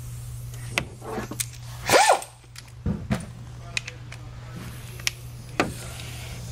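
Scattered metallic clicks and knocks of hand tools working on the engine's belt tensioner, with a short whir of a cordless power tool that rises and falls about two seconds in.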